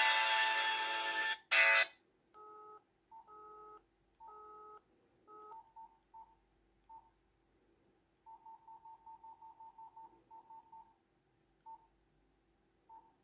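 Nokia C3-00 ringtone playing, cut off about a second and a half in, then a short loud burst. Then four faint, evenly spaced beeps of a call-ended busy tone from the LG GW300, followed by faint keypad beeps from the Nokia as its menus are scrolled, with a quick run of about a dozen near the middle.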